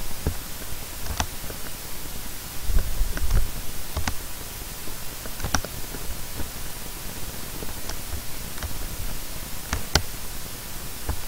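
Steady hiss from an open microphone with several sharp, scattered clicks of a computer mouse.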